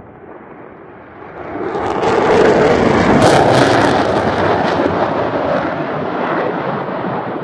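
Jet noise of a Panavia Tornado's twin RB199 engines as it takes off and climbs past. The sound swells sharply about a second and a half in to a loud peak, then eases slightly.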